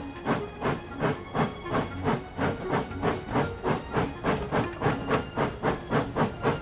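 Steam locomotive chuffing: regular beats of exhaust steam that quicken from about three to about four a second as the engine gathers speed.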